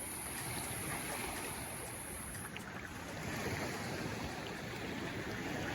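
Calm sea water washing gently around the microphone at the water's surface: a steady, even hiss with no distinct events.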